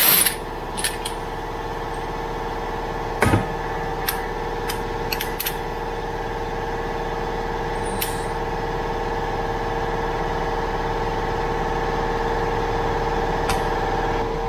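A few sharp metal clinks and knocks as a steel tailpipe expander tool is handled, worked off an exhaust pipe and set down. The loudest is right at the start, another comes about three seconds in, and there are lighter taps after that, all over a steady machine hum.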